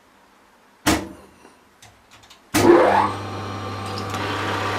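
A sharp click about a second in, then an electric motor, most likely the power drill used for tapping, switches on suddenly about two and a half seconds in, rises briefly in pitch and settles into a steady running hum.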